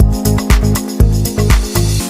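Background music with a steady, heavy bass-drum beat, about two beats a second, under sustained chords.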